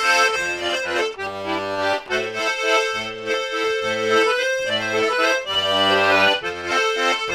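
Diatonic button accordion playing a tune, the melody carried over low bass notes that pulse on and off in a steady rhythm.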